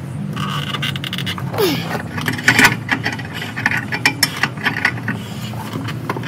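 Ratchet wrench clicking and metal scraping as the bolt of a torsion bar unloading tool is worked on a truck's torsion key, over a steady low hum.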